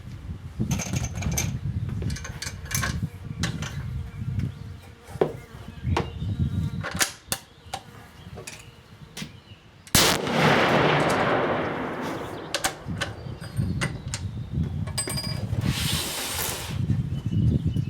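A single shot from a 375 DCM magnum rifle fitted with a T5 Terminator muzzle brake, about ten seconds in, its report dying away over a couple of seconds. Before and after it come short clicks and knocks of the rifle being handled.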